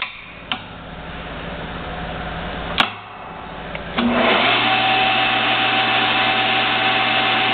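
TURNPRO 14 x 40 metal lathe changing speed: a sharp click about three seconds in, a brief lull, then about four seconds in the spindle starts up and runs steadily at super high speed, with a high whine over a low hum.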